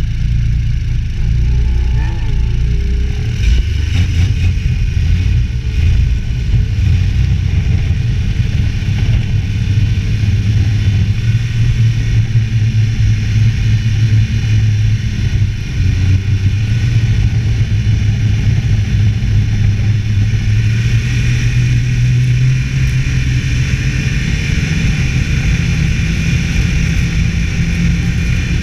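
Snowmobile engine running steadily while riding. Its pitch climbs about two-thirds of the way through as the engine revs higher.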